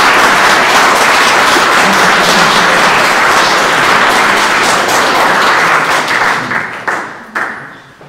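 Audience applauding, a dense steady clapping that thins into a few separate claps and fades out near the end.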